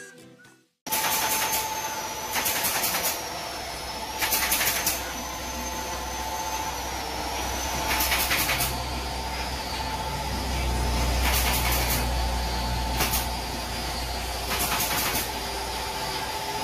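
Steady mechanical hum with a constant tone and a low rumble, starting about a second in, broken every few seconds by short bursts of hiss: machinery running in a workshop.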